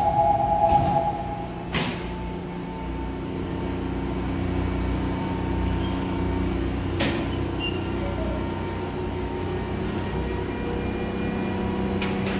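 A GEC-chopper subway train stands with its electrical equipment humming steadily while the doors close. A two-note chime ends within the first second, the train's doors shut with a knock just under two seconds in, and the platform screen doors close with a clunk about seven seconds in.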